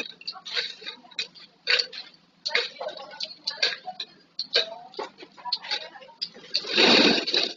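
Plastic flip-top bottles being handled: an irregular run of light clicks and knocks, with one louder clatter near the end.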